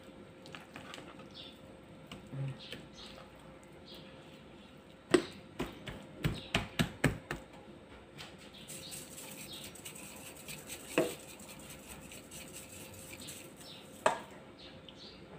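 Hands patting and pressing raw beef steaks on a plate, making sharp slaps and knocks: a quick run of about eight about five seconds in, then two single knocks later.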